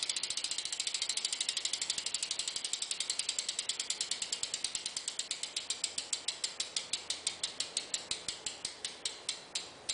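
Freewheeling rear hub of a 2012 Fit Aitken 2 BMX bike ratcheting as the spun wheel coasts. A fast run of sharp clicks slows steadily and thins out to a few clicks a second, stopping near the end as the wheel comes to rest.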